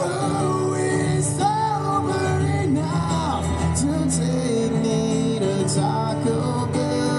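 A man singing and strumming an acoustic guitar in a live solo performance, amplified through a PA speaker.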